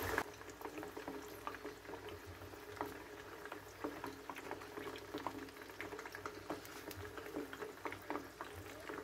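Chicken wings frying in hot oil in a pan over low heat: a soft, steady sizzle with scattered small pops and crackles.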